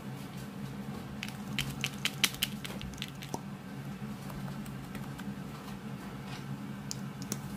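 Small plastic clicks and taps from a lip gloss tube and its applicator wand being handled, with a quick run of sharp clicks about a second and a half in and a few more near the end. A steady low hum runs underneath.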